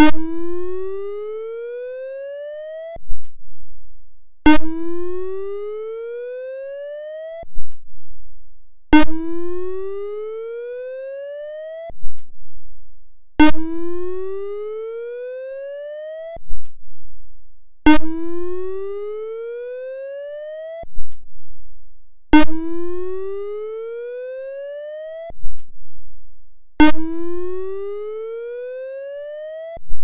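Whelen ESC-864 electronic siren sounding its whoop signal, taken as raw audio straight from the siren's output: a tone that rises in pitch over about three seconds, each rise starting with a sharp click. It breaks off for about a second and a half before the next whoop, about seven times in all.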